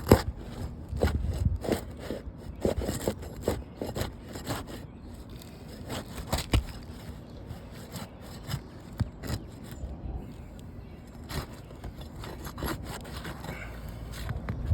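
Roof shingles being pried and scraped loose from their seal strips: irregular scraping and rubbing with scattered sharp clicks and knocks, the loudest right at the start and another about six and a half seconds in.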